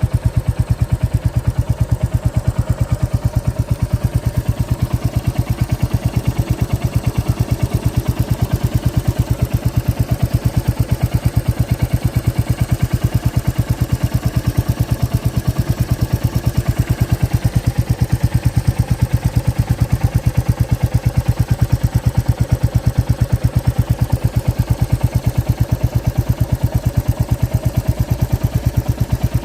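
A Royal Enfield Classic 350's single-cylinder engine idling steadily, with an even, rapid thump from the exhaust.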